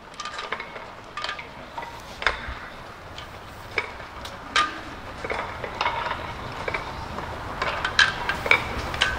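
Scattered light clicks and clinks, irregular and a few a second, over a steady low background rumble.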